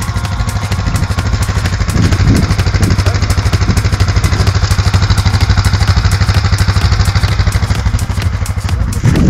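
Quad bike engine running under load close up, with a rapid, even beat, as its rear tyres churn through deep mud.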